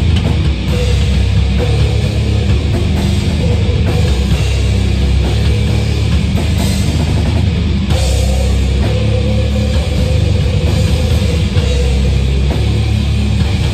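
Loud heavy metal music with drums, and an electric bass played along through an amplifier, its low notes strong throughout.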